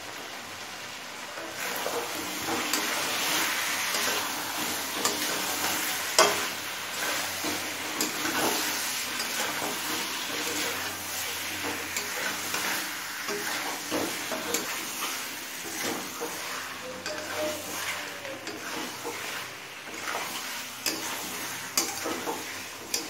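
Chicken and large chunks of onion frying in oil in a pan, with a steady sizzle and a spatula stirring and scraping through them, giving scattered clicks against the pan. The sizzle grows louder about two seconds in.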